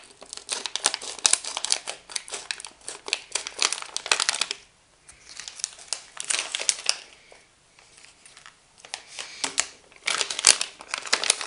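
Clear plastic bag crinkling as it is handled and opened. The crinkling comes in bunches with short pauses about halfway, and there is a sharp click near the end.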